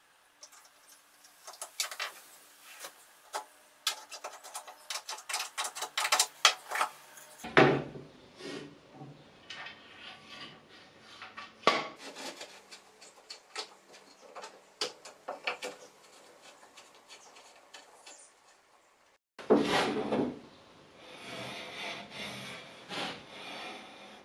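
A wooden block and an aluminium track saw guide rail being handled and fitted together on a workbench: small clicks and taps, a couple of louder knocks, and wood scraping and rubbing as the block is slid along the rail near the end.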